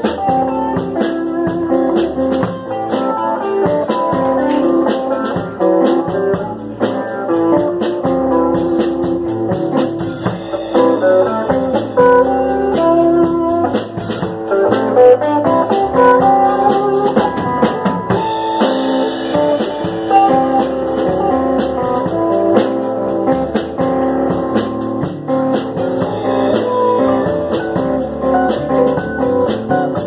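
Live band playing: two electric guitars over a drum kit, with a steady beat throughout.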